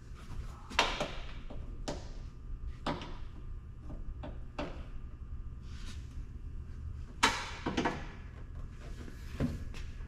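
Sharp clicks and knocks of a pickup truck's exterior door handle being worked loose from the door, the handle and latch parts clacking against the door shell. The loudest knock comes about seven seconds in, and a low steady hum runs underneath.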